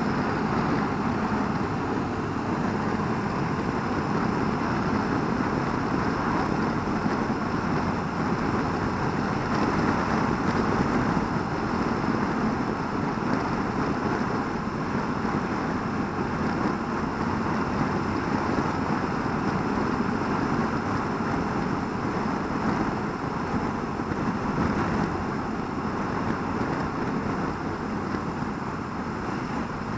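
Steady wind rush and running noise of a BMW R1200RT boxer-twin touring motorcycle cruising along a road, heard from the rider's helmet camera with wind on the microphone.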